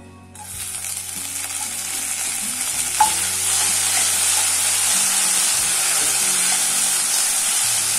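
Thoothuvalai leaves and stems sizzling as they hit hot oil in a nonstick pan; the sizzle starts about half a second in, builds over the next few seconds, then holds steady while a wooden spatula stirs them. One sharp tap about three seconds in.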